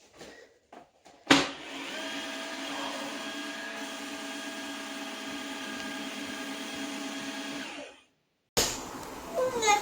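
Dreame H12S wet-and-dry cordless vacuum starting in automatic mode: the motor comes on abruptly about a second in and runs steadily for some six seconds, then cuts off. Another stretch of machine noise starts suddenly near the end.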